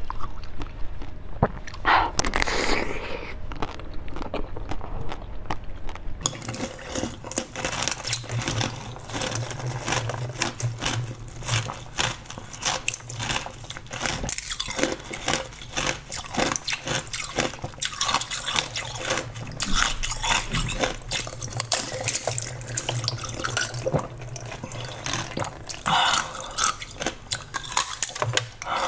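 Close-miked mouth sounds of eating soft jelly: wet, squishy bites and slurps with many small, irregular clicks. About six seconds in the sound changes to the bites and sucking of a blue drop-shaped jelly.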